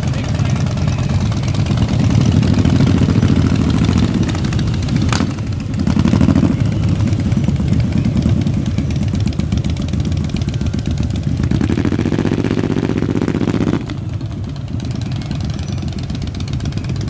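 Loud performance car engines running and revving as cars roll past, the revs rising several times, the last one cutting off suddenly near the end. A single sharp crack about five seconds in.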